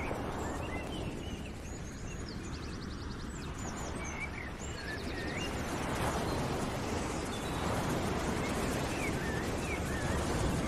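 Outdoor nature ambience: small birds chirping, with short whistled glides and quick trills, over a steady rushing noise that swells a couple of times.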